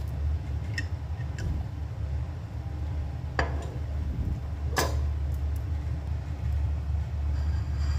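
Steady low background rumble, with two sharp clicks about a second and a half apart near the middle and a couple of fainter ticks before them.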